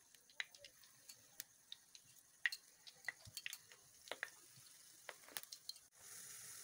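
Suji gulab jamun dough balls frying gently in lightly heated oil: faint, scattered crackles and pops. About six seconds in, a steadier sizzle starts.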